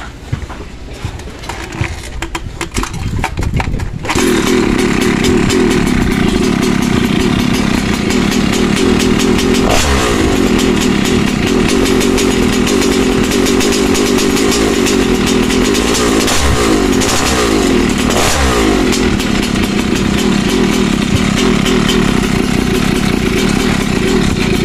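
Evo 63cc two-stroke scooter engine, fitted with an oversized carburettor, comes in loudly and abruptly about four seconds in after a few clicks and knocks. It then runs steadily at high revs, with a few brief dips and rises in pitch as the throttle is worked.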